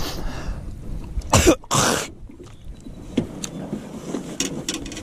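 A man coughs twice, about a second and a half in, followed by a few light knocks and clicks.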